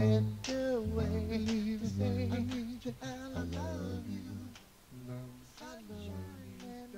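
Closing bars of a home-made pop love song recorded on a four-track reel-to-reel: melody with a wordless hummed vocal line over the backing, growing quieter toward the end as the song fades out.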